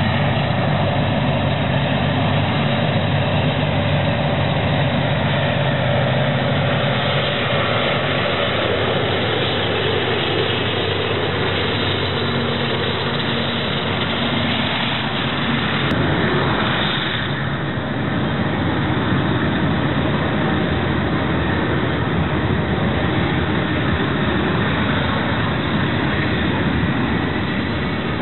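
Union Pacific freight train passing close by: its diesel locomotives run with a steady hum for the first several seconds, then the covered hopper cars roll past with a steady rumble of wheels on rail.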